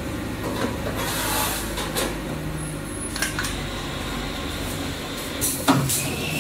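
TX-4060S-T screen printing press for tall items working: a steady low hum with scattered mechanical clicks and knocks as the screen frame and squeegee head move. There is a short hiss about a second in, and a sharper knock near the end.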